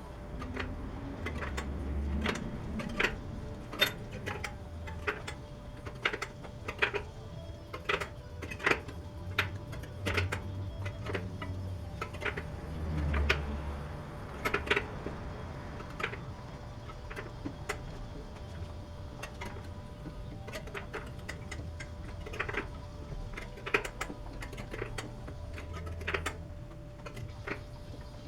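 Quick, irregular clicks and ticks of a spoke wrench and metal parts as the spokes of a BMX rear wheel are tensioned one by one, at fast-forward pace.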